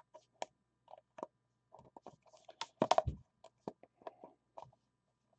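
Scattered light clicks and taps of a box being handled as someone tries to open it, with a quick run of knocks and a low thump about three seconds in.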